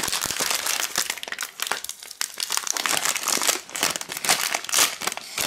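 Magnum ice-cream bar wrapper crinkling and crackling as it is handled and opened by hand, a dense run of crackles.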